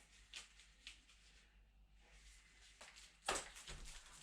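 Mostly quiet room with a few faint handling clicks, then a short rustle about three seconds in as ordered parts and their packaging are handled.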